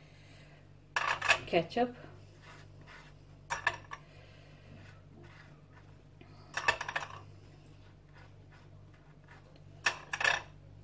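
Table knife clinking against a small glass sauce dish and plates as ketchup is scooped and spread on a burger bun: a few short clinks several seconds apart, over a low steady hum.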